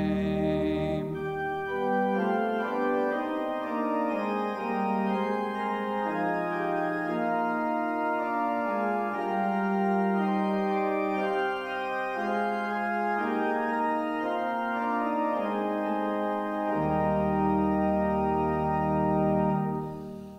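Church organ playing sustained chords as an interlude between hymn verses. A singer's last note with vibrato ends about a second in, and low pedal bass notes come back in near the end.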